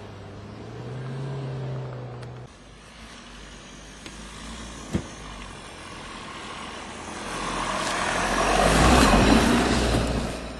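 Skoda Yeti 4x4 SUV engine running as it drives on a sandy off-road track, its steady note rising briefly early on. After a sharp knock about five seconds in, a second Yeti's engine and tyres on the sand grow loud as it passes close, loudest around nine seconds, then fade.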